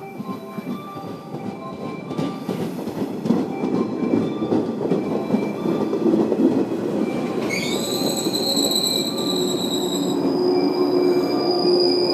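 115-series electric multiple unit pulling into a station: its running rumble grows louder as it approaches. About seven seconds in, a high squeal rises sharply and holds as the train brakes. Near the end it changes to a second, higher steady squeal.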